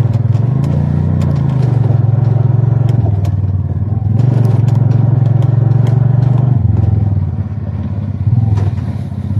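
A motorcycle engine running under way on a rough dirt road, with scattered rattles and knocks from the bumps. The engine note eases off about seven seconds in and picks up again just before the end.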